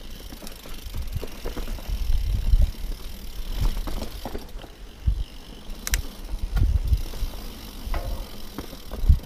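Mountain bike riding down a rocky dirt trail: tyres rolling over dirt and stones and the bike rattling over bumps, with an uneven low rumble and a few sharp knocks, the sharpest about six seconds in and just before the end.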